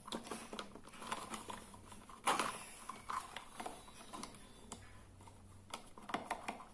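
Faint clicks, taps and scrapes of fingers handling the plastic casing and switch of a rechargeable LED torch, with one louder knock a little over two seconds in.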